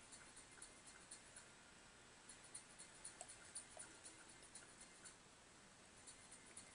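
Near silence: faint room hiss with soft, irregular small clicks and scratches.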